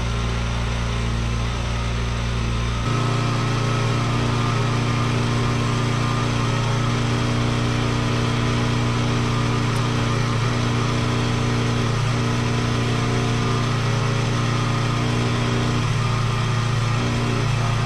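A portable bandsaw sawmill's gasoline engine running steadily. About three seconds in it steps up to a higher, louder speed and holds there.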